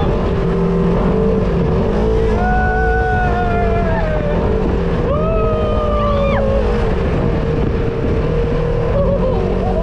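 A Polaris RZR 1000cc side-by-side running under way across sand dunes, its engine note shifting up and down with the throttle. Two long, slowly falling high tones rise above it, starting about two and a half and five seconds in.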